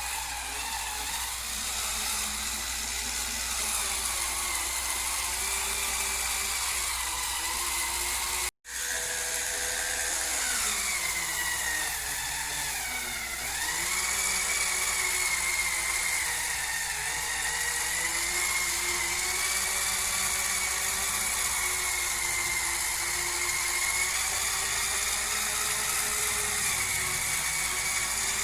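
Hurricane Spin Scrubber's electric motor running with a steady high whine. Shortly before halfway it cuts out for an instant; its pitch then sags for a few seconds and comes back up to a steady run.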